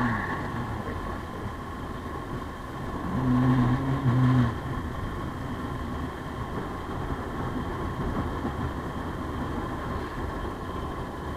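Motorcycle running at road speed, heard from the rider's camera, with steady wind and road noise. About three seconds in, a louder low steady tone sounds for just over a second, with a short break in the middle.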